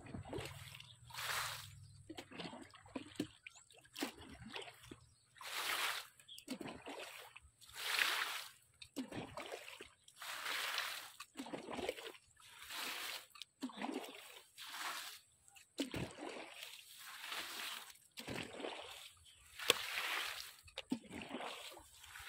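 Water splashing in short repeated bursts, about one a second.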